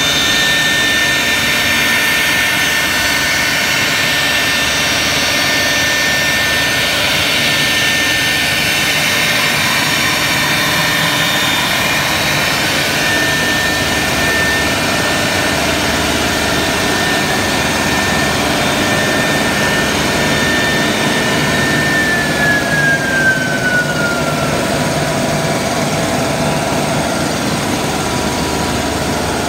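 Three-spindle CNC router running, its 4.5 kW, 18,000 rpm spindles whining steadily as they route grooves into a white panel, over a loud steady mechanical noise. About 22 seconds in, one of the whine tones slides down in pitch.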